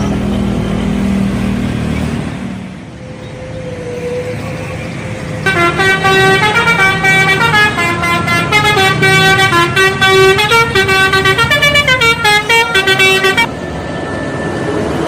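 Bus telolet horn, a bank of musical air horns, playing a quick tune of stepping notes for about eight seconds, starting about five seconds in. Before it, a bus engine runs.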